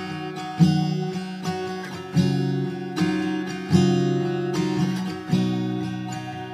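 Background music: an acoustic guitar instrumental, with chords struck about every second and a half and left to ring.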